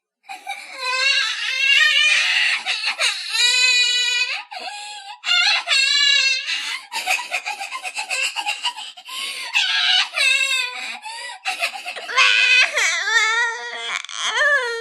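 Baby crying in a run of high, wavering wails, each broken off by a short catch of breath.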